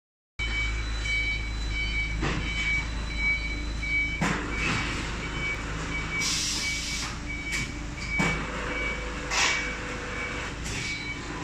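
Cement block-making plant machinery running with a steady low hum, while a warning beeper sounds about two and a half times a second. A few metal clanks and a short hiss about six seconds in come over it.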